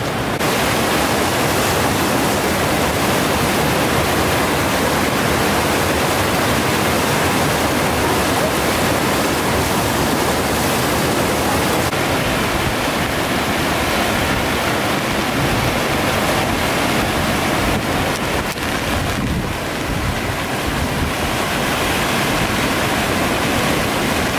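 Floodwater of the swollen Geul river rushing past in a loud, steady flow. The sound gets deeper about halfway through.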